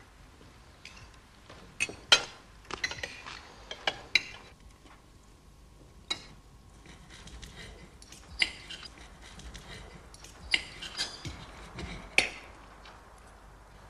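Forks and knives clinking against china plates during a meal: scattered sharp clinks, irregular and a second or two apart.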